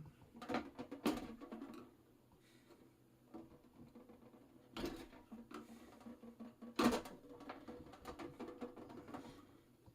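Scattered clicks and knocks of hand-handling a small plastic gearbox and motor while prying at a retaining clip with a screwdriver, with a few sharper clicks among quieter rustling.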